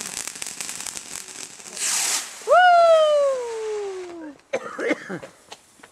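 Consumer fireworks crackling rapidly, then a short loud hiss, followed by a long whistle that glides steadily down in pitch.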